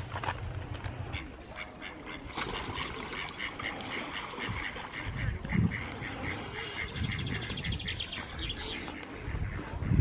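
Mallard ducks calling: a rapid, even run of short calls, about four a second, that stops near the end.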